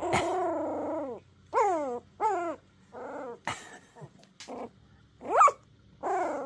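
Puppy vocalizing in a string of whiny, yowling barks: one long falling call about a second long, then about six shorter calls.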